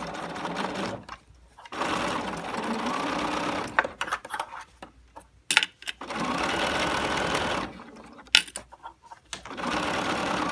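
BERNINA 770 sewing machine topstitching binding on a fabric basket. It runs in four spurts of one to two seconds, stopping between them, with a few sharp clicks in the pauses.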